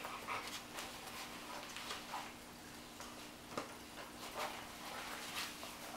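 Scattered light clicks and scuffs of a puppy's claws and feet scrabbling on a vinyl floor as it tugs a bite rag, over a faint steady hum.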